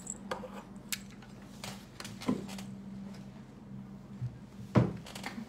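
Handling noise: scattered small clicks and knocks, with one louder knock near the end, over a steady low hum.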